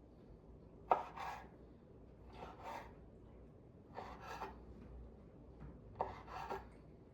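Knife cutting raisins on a cutting board: four separate strokes about every second and a half, each a knock followed by a short scrape.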